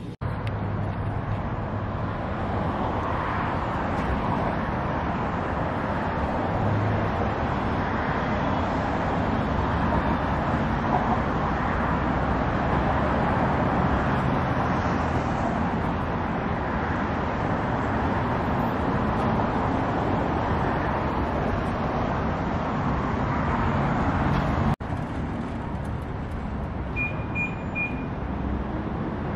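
Steady mechanical rumble and hiss as a car vending machine's delivery platform brings a car out of its glass bay. The sound breaks off abruptly about 25 seconds in and carries on a little quieter, with three short high beeps soon after.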